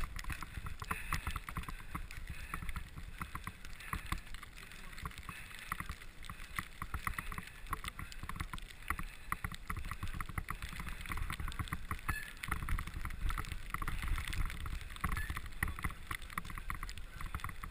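Bicycle ridden over a bumpy snow-covered trail: a rapid, irregular clatter of small rattles and clicks from the bike, over a low rumble of tyres and wind that grows louder in the last few seconds.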